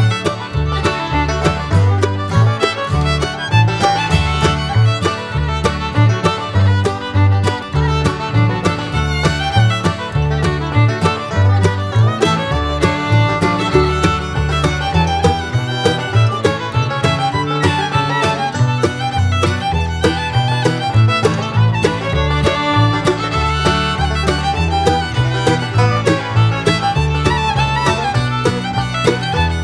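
Upbeat bluegrass-style music with fiddle over a steady bass and plucked strings.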